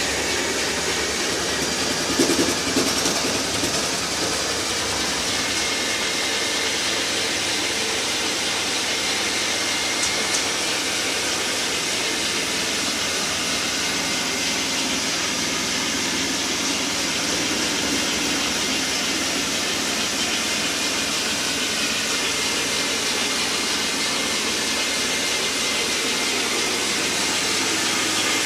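Carpet-cleaning extraction machine's vacuum running steadily: an even, hissing noise that does not change.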